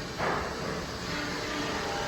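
Steady running noise of sawmill machinery at the green chain, with a low hum and one light knock just after the start.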